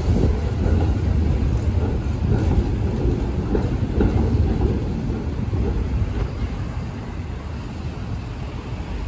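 Articulated PCC tram rolling past on street rails and moving away: a steady rumble of wheels on track that gradually fades over the second half.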